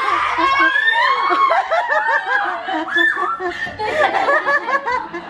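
A group of children and adults laughing together, many voices overlapping, with a little talk mixed in.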